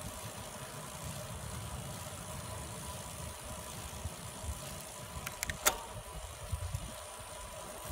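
Wind rumbling on the phone's microphone along with road noise from a moving bicycle, a low, uneven rumble. A few sharp clicks come about five and a half seconds in.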